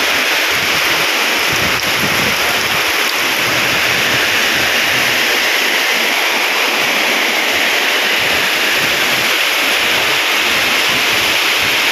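Heavy tropical rain pouring steadily onto the road and surroundings, a dense unbroken hiss.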